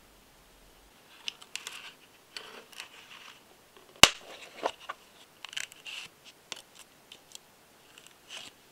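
Hands handling a clear plastic parts case: light scrapes and taps, then a sharp snap about four seconds in as the case's latch is opened, followed by more small clicks and taps of plastic.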